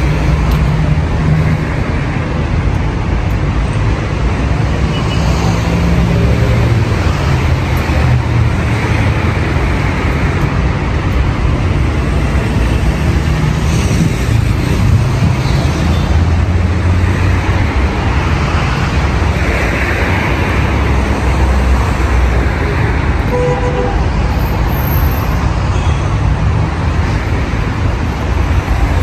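Steady city road traffic: car engines and tyres rumbling continuously along the street.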